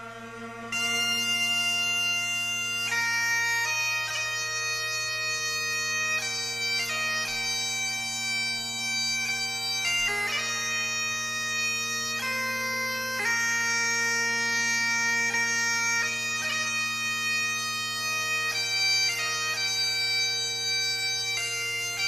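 Bagpipe music: a steady drone under a chanter melody of short, changing notes, the melody coming in about a second in.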